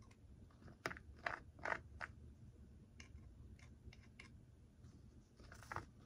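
Faint, short scrapes and taps of a thin applicator stick spreading epoxy glue on a small plastic model part and scooping more from a piece of cardboard, about eight light strokes, the loudest a second or two in.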